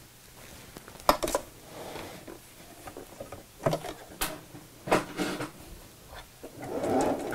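Cotton fabric being handled and rustled at a sewing machine as it is positioned under the presser foot, with a few irregular sharp clicks and taps and a louder rustle near the end.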